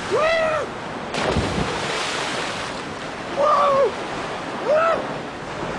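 A man shouts as he jumps from a sea cliff, then a splash as he hits the water about a second in, followed by churning surf. Two more shouts come from him in the sea.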